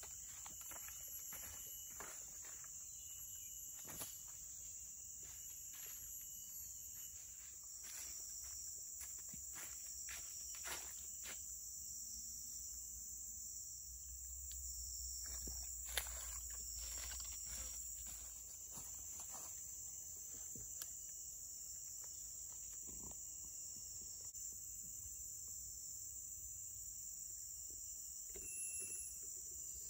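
Steady, high-pitched chorus of rainforest insects, with scattered light clicks and rustles of footsteps on the forest floor.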